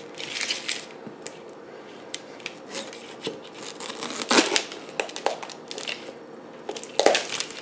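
Chef's knife cutting through the hard rind of a raw spaghetti squash: uneven scraping strokes with scattered clicks. Louder cuts come about half a second in, around four and a half seconds and near the end.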